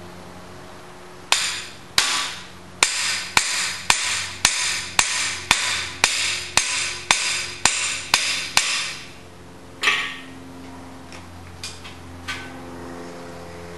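Hammer blows on the driver bar of a cam bearing installation tool, driving a bimetal cam bearing into the bore of a Ford 428 FE engine block. About fourteen sharp, ringing blows come at roughly two a second, then one more blow and a few light taps.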